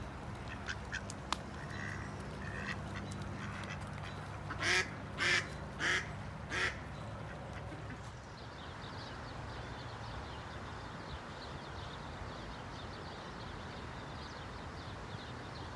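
Mallard quacking four times in a row, the calls about two-thirds of a second apart.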